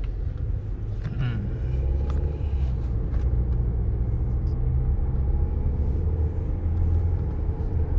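A car driving slowly, its engine and tyres making a steady low rumble, with a few faint knocks.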